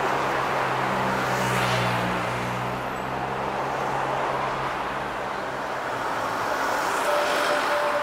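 Street traffic: cars and a truck passing close by, over a low engine hum that fades out after about six seconds. A single steady tone begins near the end.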